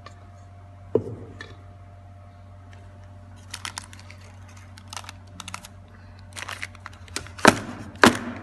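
Scattered clicks and knocks of a metal baking tray and a plastic container as cake batter is poured and spread in the tray, with two louder knocks near the end.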